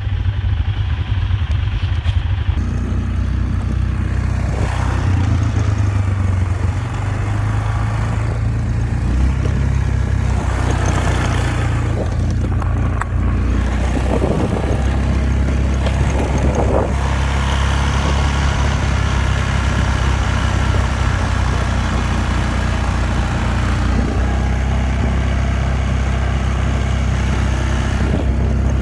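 A motor vehicle's engine running steadily, its pitch shifting up and down in steps several times.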